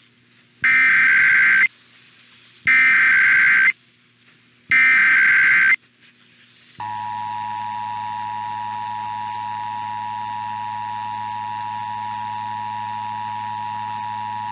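Emergency Alert System SAME header: three warbling one-second bursts of digital data, about a second apart. About seven seconds in, the EAS two-tone attention signal starts and holds steady, marking the start of a broadcast alert test.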